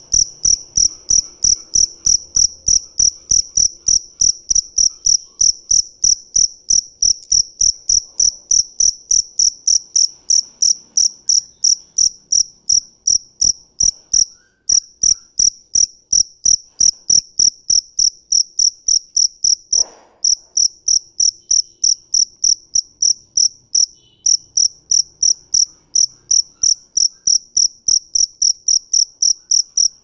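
Male two-spotted field cricket (Gryllus bimaculatus) stridulating, rubbing its raised wings together in its calling song: a steady, high-pitched train of short chirps, about three a second, with a couple of brief pauses.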